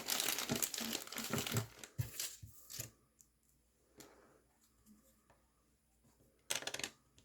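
Crinkling and rustling of plastic being handled for nearly three seconds, then a few small taps and one more brief crinkle near the end.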